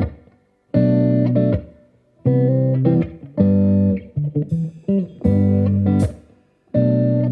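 Background music: guitar chords played in short phrases of about a second each, with brief pauses between them.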